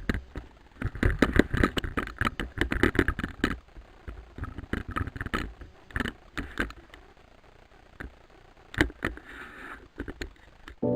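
Mountain bike rattling over rough ground: a fast, irregular clatter of knocks over a low rumble, busy for the first few seconds, then thinning to scattered knocks.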